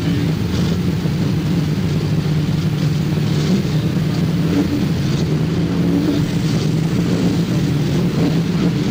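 Race car engines from a field of cars running at speed around the speedway, a steady dense drone with no single car standing out.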